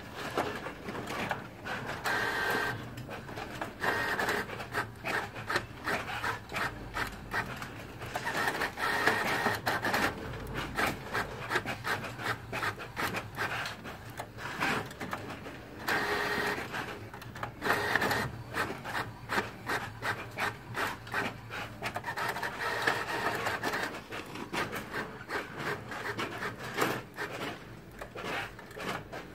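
Epson WorkForce WF-5620 inkjet printer printing, its printhead carriage running back and forth across the page in repeated passes with a steady whir and dense clicking as the paper feeds through.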